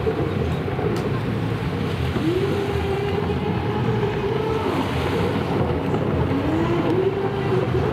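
Several racing jet skis' engines running hard, with the pitch of one rising as it accelerates about two seconds in and again about six seconds in, over steady engine and water noise.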